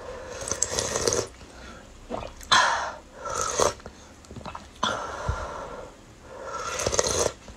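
A person slurping spicy broth from a spoon: about four noisy, hissing slurps and sharp breaths through the mouth, each a half second to a second long.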